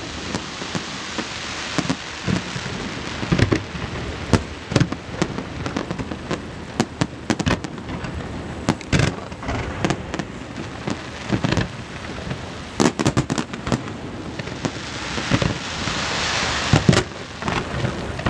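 Fireworks going off: a continuous crackle with many sharp bangs at irregular intervals. A rushing hiss swells up near the end.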